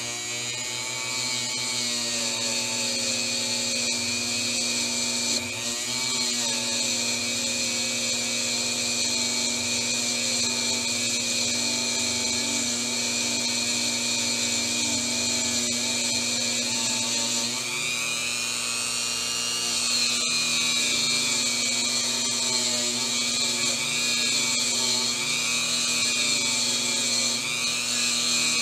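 A Dremel-type rotary tool spins a brass wire wheel with a steady high whine while the copper contact drum of a model-train reverse unit is held against it to burnish it. The pitch wavers as the part is pressed on, and sags and recovers briefly about two-thirds of the way through.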